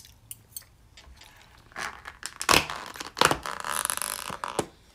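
Clear plastic food packaging being handled: a few light clicks, then crinkling and rustling, with two louder crackles about two and a half and three seconds in.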